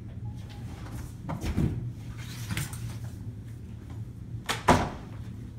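Soft knocks and shuffling, then one loud door bang about three-quarters of the way through, over a steady low hum.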